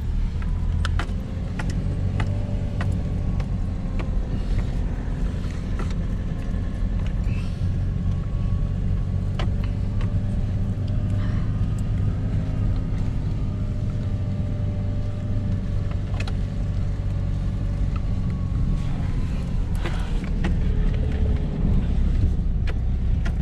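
Car engine and road noise heard from inside the cabin while driving: a steady low rumble with a faint, slowly wavering engine tone, and scattered light clicks and knocks.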